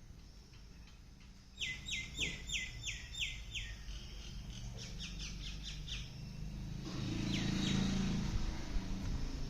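A bird calling in quick runs of short, clear chirps, each falling in pitch, about three a second, then a faster twittering series. About seven seconds in, a louder low, rough sound comes in under one more falling chirp.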